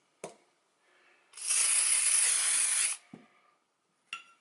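Aerosol spray can spraying the pistol's parts in one steady hissing burst of about a second and a half, with a light knock of handling just before it and another near the end.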